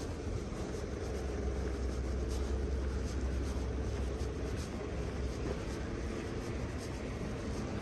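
Street ambience on a city sidewalk: a steady low rumble of road traffic, easing a little about five or six seconds in, with faint, regular footsteps.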